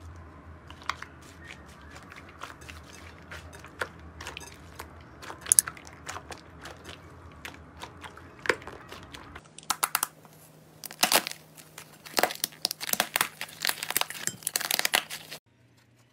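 Foam-bead slime (floam) being pressed and squeezed by hand: the foam beads crackle and pop in quick clicks, sparse at first, then much denser and louder in the second half, stopping suddenly near the end.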